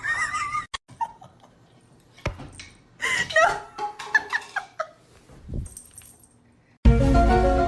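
A dog giving several short, high calls that rise and fall in pitch, with quiet gaps between them; music starts suddenly near the end.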